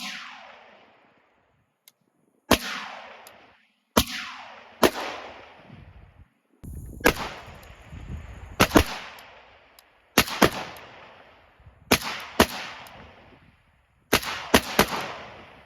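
AK-47 rifle firing 7.62×39 mm rounds: about fourteen shots, some single and some in quick pairs, each followed by a fading echo.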